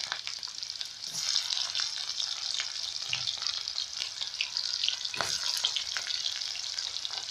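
Freshly added chopped onions sizzling and spattering in hot oil with cumin seeds in a kadhai: a dense crackling hiss with a few louder pops.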